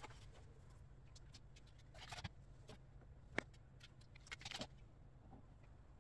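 Faint household handling noises over a low steady hum: a short scraping rustle about two seconds in, a single sharp click a little later, then a few quick rustles and clicks, as items and organizer parts are moved around in a kitchen cabinet.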